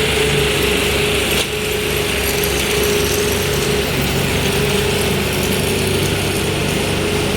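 Heavy truck's drivetrain running under load, a steady gear whine over the low engine rumble.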